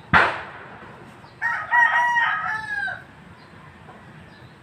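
Rooster crowing once, a multi-part crow of about a second and a half starting about one and a half seconds in. It follows a short sharp noise right at the start.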